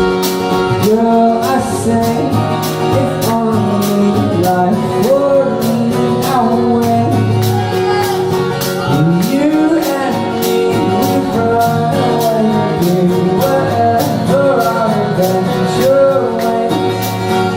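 Live band music: a man singing over strummed acoustic guitar with a steady beat, in a folk-pop style.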